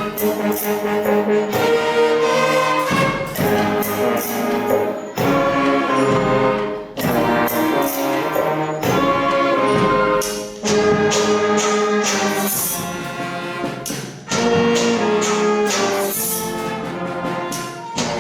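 Symphonic wind band playing, brass leading with trumpets and trombones over percussion, in loud phrases broken by short breaks.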